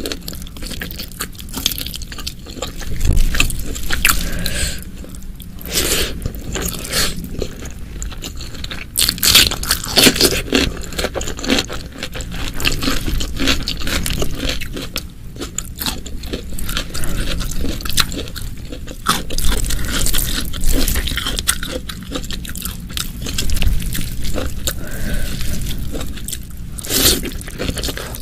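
Close-miked eating: a person biting, crunching and chewing food, with loud crunchy bites every several seconds among steady wet chewing.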